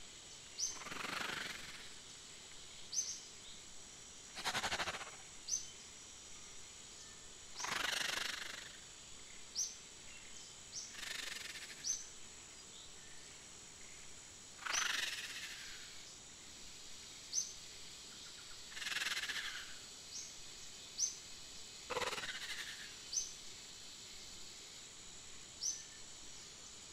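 Nature sound-effect bed: a steady high insect-like drone with short high chirps every couple of seconds, and seven louder swishing noises, each about a second long, a few seconds apart.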